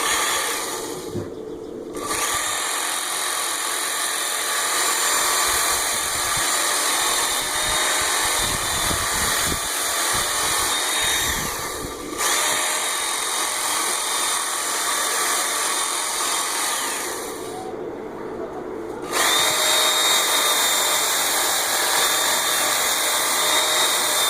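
Work Sharp Ken Onion Edition belt sharpener running, its fine X65 abrasive belt (roughly 300 grit) grinding the steel bevel of an axe head, with a thin steady whine. The grinding comes in passes, with a short break about twelve seconds in and a longer lull near the end before it starts up again, louder.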